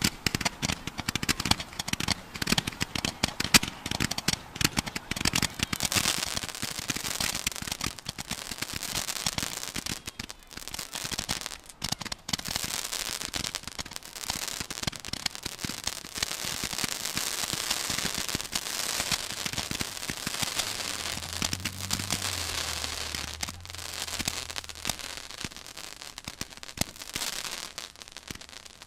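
'Neon Tracers' firework firing tracer shots in rapid succession: sharp pops close together at first, then a continuous crackling hiss.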